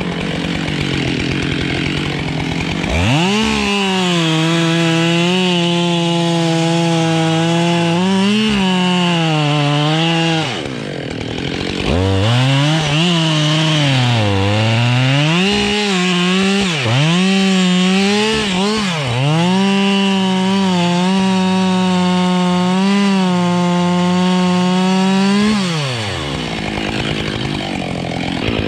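Husqvarna 572 two-stroke chainsaw revved from idle to full throttle and cutting wood. Its pitch holds high through long cuts, with throttle drops and up-and-down revving in the middle, and it falls back to idle near the end.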